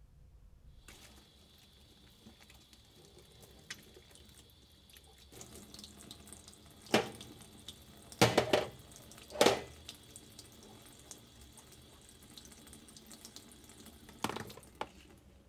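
Kitchen tap running into a sink during washing-up, starting about a second in, with loud clatters of dishes being handled: once at about seven seconds, several in a row from eight to ten seconds, and once more near the end.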